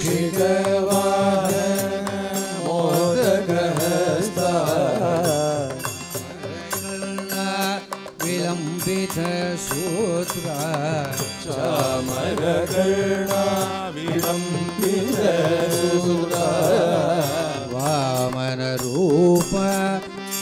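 A male voice sings a slow Carnatic devotional melody with many sliding ornaments over a steady drone. It sounds like a leisurely, wordless opening phrase that leads into a Ganesha hymn.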